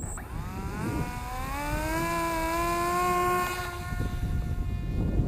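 Brushless electric motor and propeller of a small RC foamboard plane whining, rising in pitch over about two seconds as it spools up, holding steady, then fading away a little after three seconds. Wind buffets the microphone underneath.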